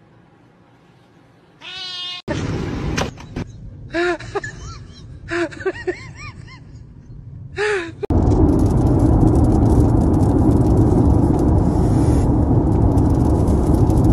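Cats meowing: a handful of short meows, each rising and falling in pitch. About eight seconds in they give way to loud, steady road noise inside a moving car.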